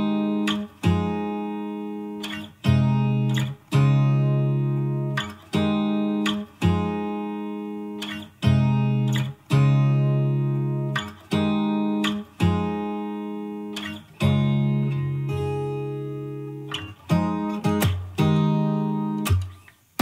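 Background music: acoustic guitar chords plucked and left to ring out, a new chord about every one and a half seconds.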